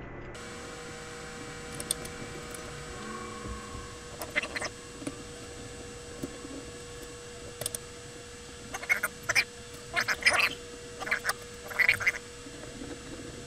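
Screwdriver driving screws into an airsoft AEG's gearbox shell: short scraping, rasping bursts of metal on metal, a few at a time with gaps between, over a steady faint hum.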